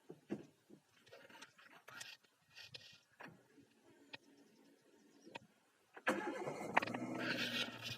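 Scattered light clicks and knocks, then about six seconds in a car engine starts and runs steadily.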